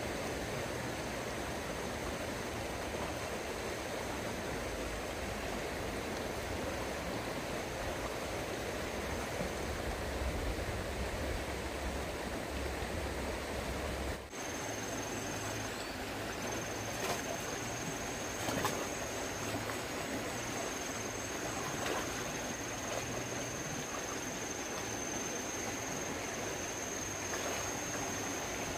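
Steady rush of flowing stream water. After a brief dip about halfway through, a thin, high, steady whine joins it, with a few light clicks.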